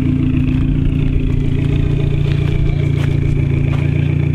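Car engine idling steadily, a constant low drone.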